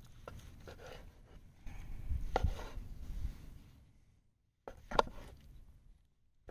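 Knife cutting cooked steak on a cutting board: soft scraping and tapping, with two sharp knocks about two and a half and five seconds in.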